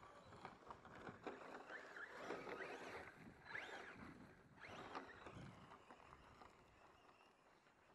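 Faint whine of a radio-controlled short-course truck's electric motor, rising and falling in pitch as it speeds up and slows down, over a rough rolling noise; it fades in the last few seconds.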